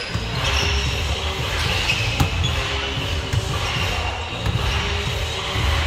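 Basketball bouncing on a hardwood gym floor, with a few sharp knocks, echoing in a large gym hall.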